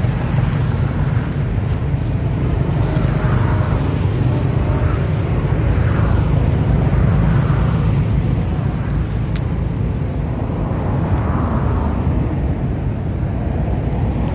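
A steady low rumble with soft swells, running throughout.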